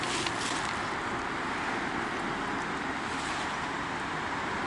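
Steady outdoor background noise, an even hiss with no distinct events.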